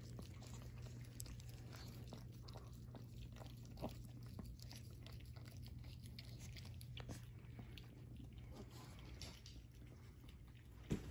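Pomeranian puppies licking and lapping frozen dog ice cream from paper cups: soft, wet mouth sounds and many small clicks, with a few louder clicks among them.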